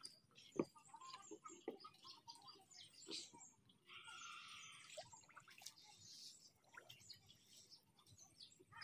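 Faint rural outdoor ambience: small birds chirping and chickens clucking, with a single sharp knock about half a second in.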